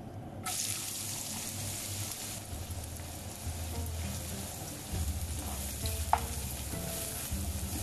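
Chopped onions hit hot oil and ghee in a non-stick wok and start sizzling suddenly about half a second in. The sizzle is hardest for a couple of seconds, then settles to a steadier frying sizzle as a slotted spatula stirs them, with one sharp tap of the spatula on the pan about six seconds in.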